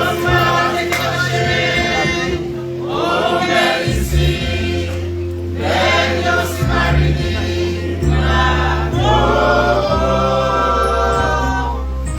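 Choir singing a gospel hymn in phrases of about two seconds, over sustained low bass notes that change every few seconds and a steady held tone.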